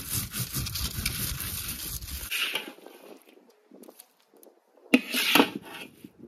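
Scraping and clatter of a spatula in a kadhai as the thick cooked besan mixture is scraped out onto a tray. The scraping stops abruptly about two seconds in, and two sharp knocks come about five seconds in.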